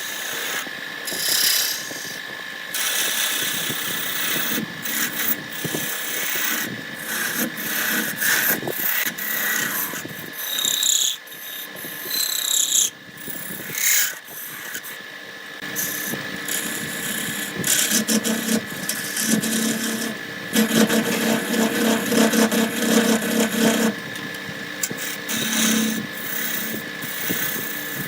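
Wood lathe running with a steady whine while a turning tool cuts and scrapes the spinning wood in irregular passes that stop and start. The cutting grows louder and denser about two-thirds of the way through.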